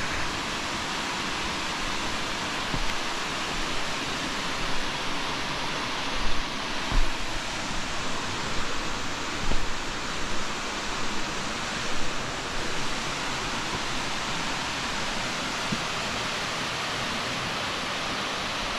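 Steady rushing hiss of falling water, with a few soft low thumps around the middle.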